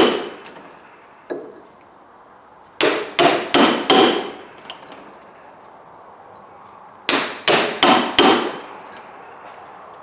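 Hammer striking a steel bolt punch to drive the cut copper windings out of a 2 hp electric motor's stator core: two quick series of four ringing metal blows, with a single lighter tap about a second in.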